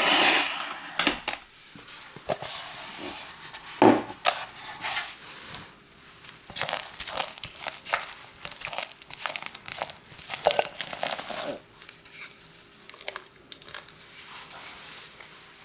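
Kitchen handling sounds: wooden utensils knocking and scraping against glass bowls, with irregular clicks and papery crinkles and a sharp knock about four seconds in. Near the end, batter is scraped from a glass bowl into a parchment-lined springform pan with a spatula.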